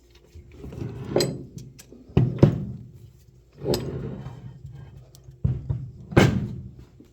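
Ductile iron bench vise being handled: about six sharp metal clunks that ring briefly, with scraping and sliding between them.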